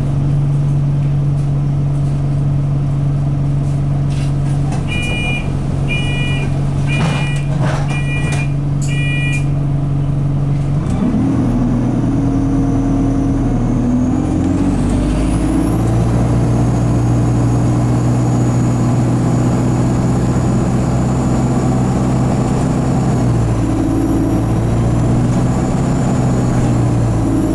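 Alexander Dennis Enviro200 bus engine idling, then taking load and pulling away at steady revs, its gearbox stuck in 2nd/3rd. Five short electronic beeps, about a second apart, come early, and from about halfway a high turbo squeal rises and then holds.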